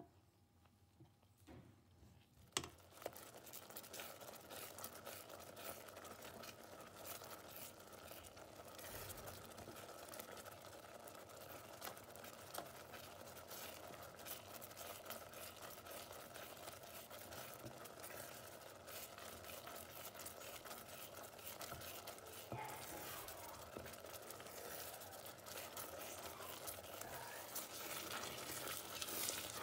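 Wooden spoon stirring and scraping thick, reducing milk in a steel pot as it bubbles on high heat: a steady soft crackle of small pops and scrapes. It starts after a sharp knock about two and a half seconds in and grows a little louder near the end. The milk is being cooked down to khoya.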